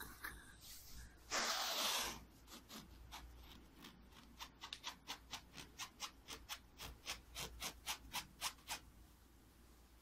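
A loud rustle lasting under a second, then a run of short scratching strokes, about three a second, from about three seconds in until near the end: fingernails scratching a fabric cushion.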